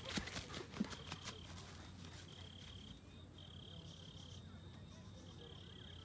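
An insect trilling: a steady high-pitched buzz that comes in stretches of about half a second to a second, with short breaks between them. A few soft rustles or footsteps on grass are heard in the first second or so.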